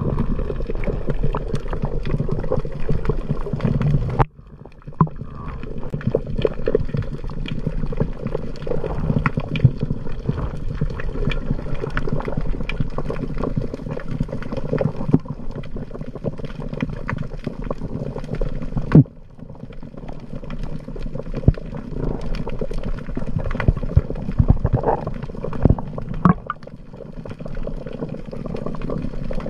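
Underwater sound picked up by a submerged camera: a muffled low rush of water, with many small clicks and crackles. It drops out abruptly about four seconds in and again just before twenty seconds.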